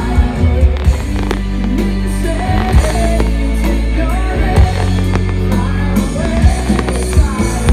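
Loud pop-rock music with singing, punctuated by short sharp bangs every half second to second.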